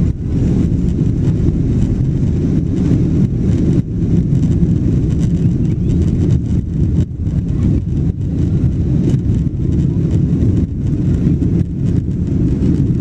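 Airliner cabin noise during takeoff: a loud, steady low rumble from the jet engines, with frequent short rattles and knocks.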